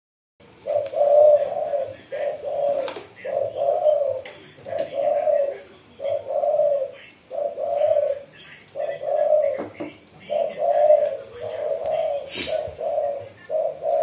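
Caged dove cooing: a long run of low, even coos, about one a second.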